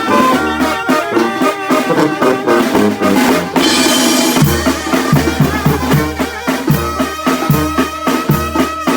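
Oaxacan brass band playing: trumpets and trombones over drums, with a cymbal crash about four seconds in, after which a steady low bass beat sets in.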